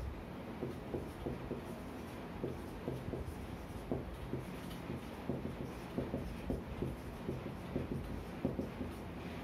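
Marker pen writing on a whiteboard: a string of short, irregular strokes and taps as a diagram and figures are drawn, over a steady low hum.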